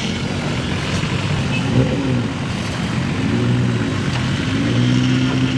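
Engine of a modified off-road 4x4 trial vehicle working over a dirt mound, its revs rising and falling in the middle, then held steady and higher near the end. A single sharp knock comes just under two seconds in.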